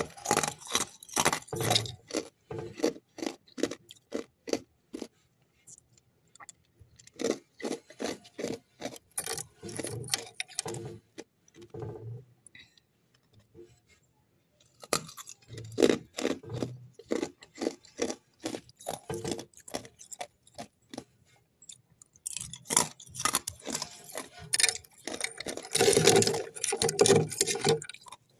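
Freezer frost and ice being bitten and chewed: runs of rapid, crisp crunches with short pauses of a second or two between mouthfuls.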